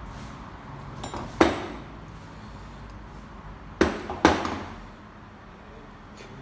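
Three sharp metal knocks with a short ring, the last two close together: a common-rail diesel high-pressure pump being struck to separate its housing from the head once its bolts are out.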